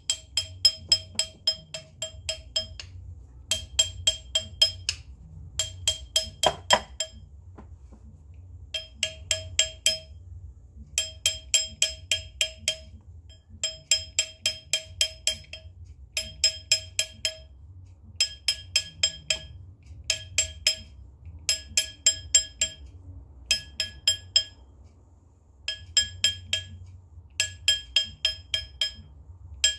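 A hammer tapping a gold ring seated on a stainless steel ring mandrel, in quick runs of several blows, about three or four a second, with short pauses between runs. Each blow rings with a clear metallic ping. The tapping stretches the ring up a size.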